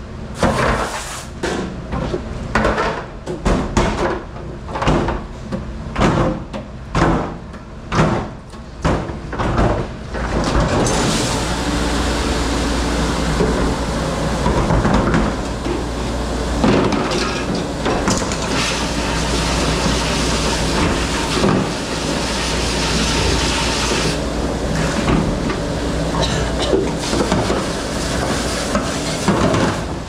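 Dishes and ware knocking and clattering in a dishwashing station, with sharp separate knocks for about ten seconds, then a steady rushing noise with a low hum and occasional clinks.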